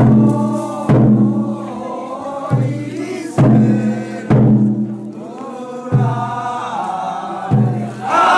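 A large taiko drum struck in slow, uneven beats, about every second or so, each stroke ringing on, under men chanting a festival song together.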